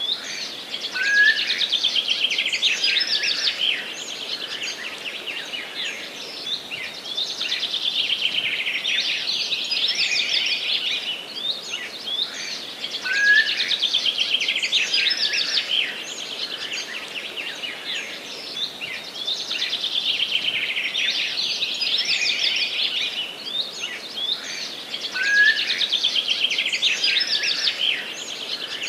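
A chorus of small songbirds singing, with dense overlapping high chirps and trills that swell and ease in waves. A short rising note repeats about every twelve seconds.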